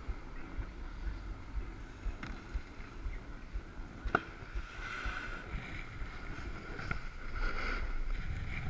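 Wind buffeting the camera's microphone while sliding downhill, with the hiss of edges scraping over packed snow that swells a couple of times. A single sharp click about four seconds in.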